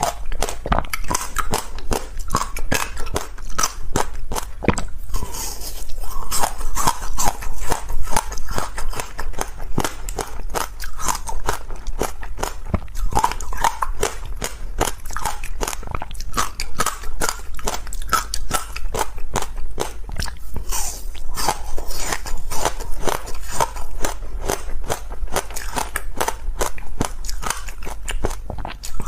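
Close-miked biting and chewing of hard, crunchy ice: a dense, continuous run of crunches and crackles.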